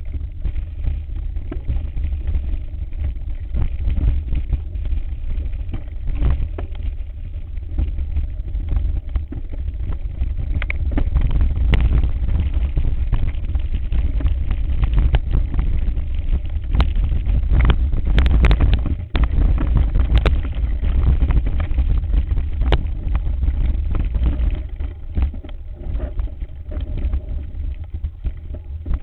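Wind rumbling on the microphone of a camera riding on a mountain bike descending rough rocky singletrack, with the frequent rattles and knocks of the bike bouncing over stones.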